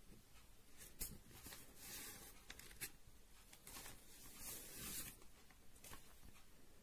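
Near silence: faint room tone with a few soft rustles and a couple of small clicks.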